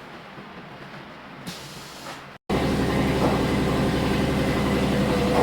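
Low, steady background noise. Then, right after a brief cut about two and a half seconds in, a machine is suddenly heard running loudly, a steady mechanical hum with several held tones.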